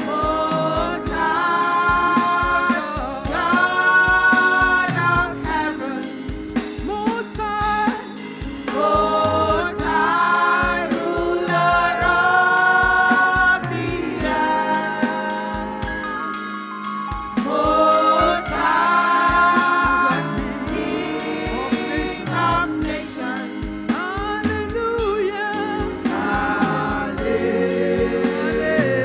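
Gospel worship song: several voices singing together over a band with a steady drum beat.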